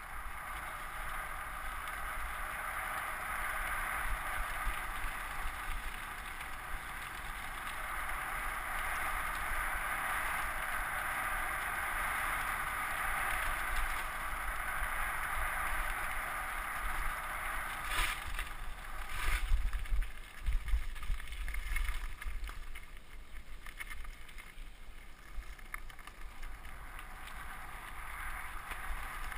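Wind rushing over an action-camera microphone and tyres rumbling on loose gravel during a fast downhill bike ride. A few sharp knocks and heavier jolts come about two-thirds of the way through as the bike hits bumps.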